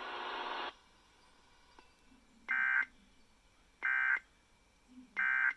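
Emergency Alert System broadcast closing with three short bursts of screechy digital SAME data, the End of Message code that signals the end of the tornado warning. A hiss cuts off abruptly just under a second in, before the first burst.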